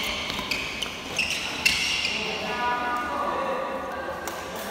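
Badminton rally: sharp racket hits on the shuttlecock, the loudest about a second and a half in, with sneakers squeaking on the court floor in the first couple of seconds.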